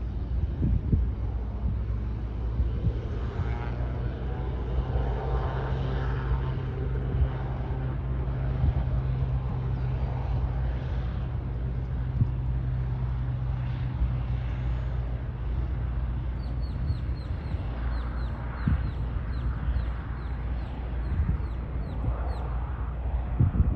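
Socata TBM 850's Pratt & Whitney PT6 turboprop engine running at a distance as the aircraft moves along the runway, a steady low hum. In the later part a bird chirps quickly and repeatedly, about two or three high chirps a second.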